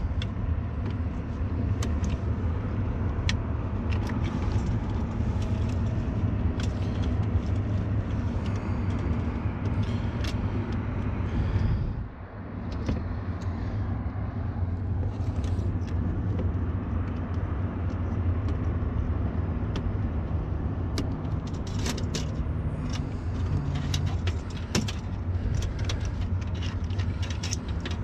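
A steady low mechanical hum, with scattered sharp clicks and rustling as gloved hands push wire connectors onto a rooftop unit's control board.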